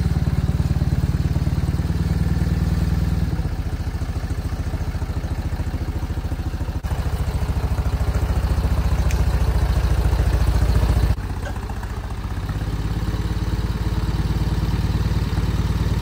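NAMCO stand-up forklift running as it carries a truck transmission slung from its forks in chains: a steady low mechanical drone with a fast even pulse, changing in level a few times, notably a drop about 11 seconds in.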